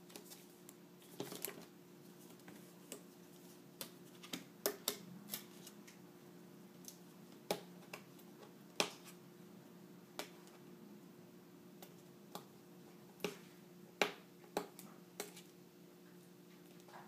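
Hard clear plastic and cardboard retail packaging of a GoPro camera clicking and crackling as fingers pick and pry at it to open it: about twenty sharp clicks at irregular intervals.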